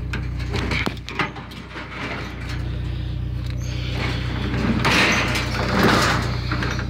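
Pickup truck engine running with a steady low hum, with clunks and rattling over it that grow loudest about five to six seconds in.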